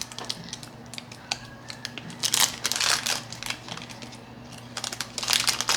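Plastic candy packaging crinkling and rustling in irregular bursts as it is handled to take a candy out.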